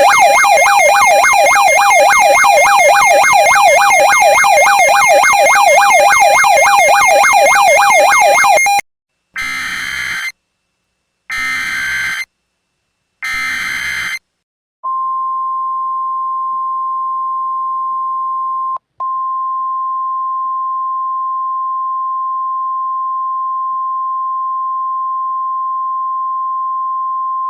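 A rapidly warbling electronic alarm tone for about nine seconds, then three short bursts of Emergency Alert System SAME header data about a second apart. After them comes the NOAA Weather Radio warning alarm tone, one steady high pitch held for about thirteen seconds with a brief break partway through.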